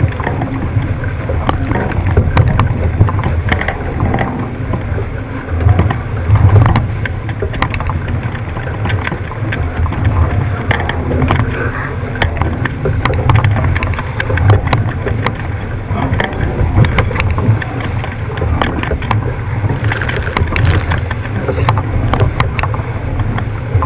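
Wind buffeting the microphone and water rushing past the hull of an 18ft skiff sailing fast, a loud, uneven low rumble with scattered splashes and crackles.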